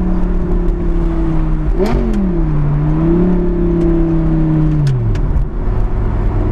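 Audi R8's 5.2 FSI V10 through a catless Fabspeed valved exhaust, heard from inside the cabin at low revs. A quick blip of revs with a click comes about two seconds in, then the engine runs steadily before the revs fall away to idle near the end.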